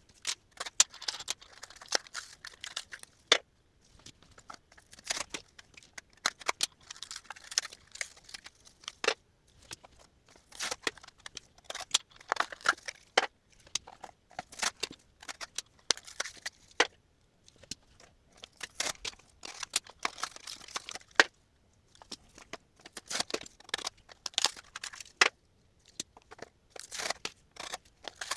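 Hands opening and handling packaging from a case of Matchbox die-cast cars. Irregular bursts of crinkling and tearing of cardboard and plastic, with sharp clicks and taps, broken by brief pauses.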